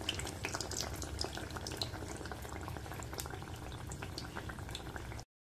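Batter-coated eggplant slice (baingan pakora) deep-frying in hot oil in a steel kadai: a steady sizzle with dense crackling pops. It cuts off abruptly near the end.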